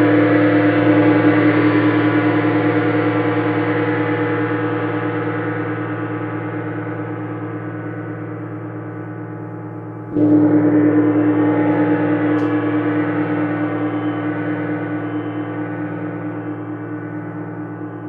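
24-inch Paiste Symphonic gong ringing with many overtones, slowly fading from a mallet stroke, then struck again about ten seconds in and swelling back up before fading once more.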